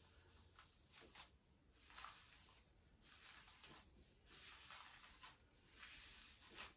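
Faint, irregular squishing and rubbing of fingers working product into wet hair, applied from a squeeze applicator bottle. The loudest swish comes near the end.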